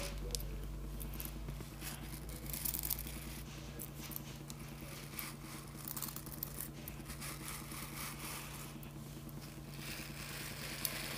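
Fingers scraping and strumming across the bristles of a hairbrush close to the microphone, a continuous run of irregular bristly scratches.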